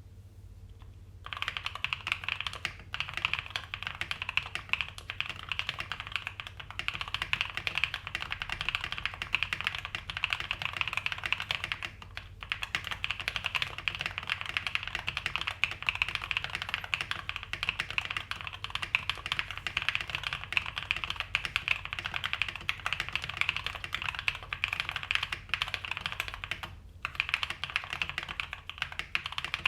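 Continuous typing on a custom 65% mechanical keyboard with lubed Cobalt POM switches on a POM plate and PBT keycaps: a dense stream of key clacks that starts about a second in and breaks off briefly a few times.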